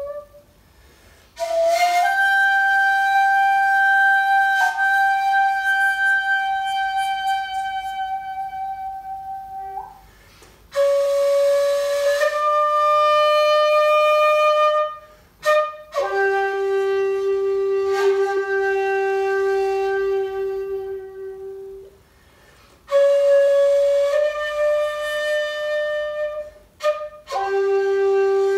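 Shakuhachi playing a slow phrase of long held notes, each lasting several seconds, with short pauses between them. The pitch steps down to a lower note about midway and again near the end. A traditional bamboo shakuhachi and a 3D-printed one are played in turn.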